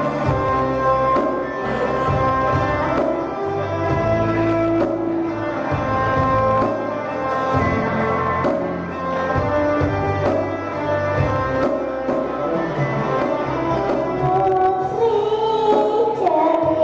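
Instrumental backing music for a children's song, sustained notes over a steady rhythmic beat. A child's singing voice comes back in near the end.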